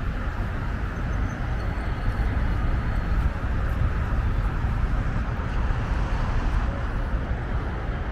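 Steady traffic noise from vehicles passing on a multi-lane highway, a continuous rumble and tyre hiss without breaks.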